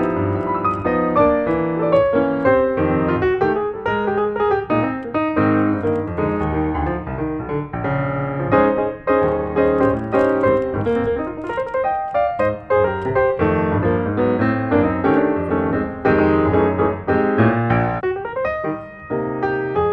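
Background piano music: a busy, unbroken stream of quick notes and chords.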